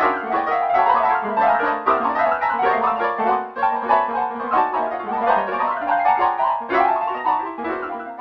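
A MIDI tune played on a synthesized piano sound: a quick, busy melody with several notes sounding together.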